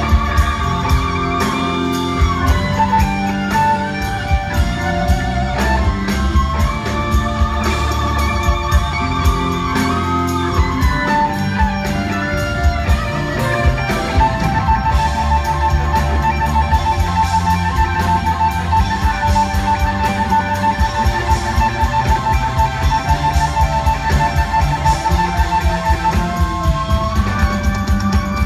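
Live electric blues-rock guitar solo on a Les Paul-style electric guitar, with long sustained notes bent up and down over a band with drums keeping time. About halfway through, one note is held with vibrato for over ten seconds, then bent up near the end.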